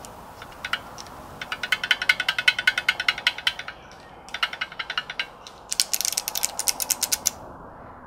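Kailh Box Jade clicky switches pressed in three runs of rapid clicks on a KBD661 aluminium keyboard without keycaps. The plate sits loose in the case with no clamping pressure, so it moves as the switches are pressed.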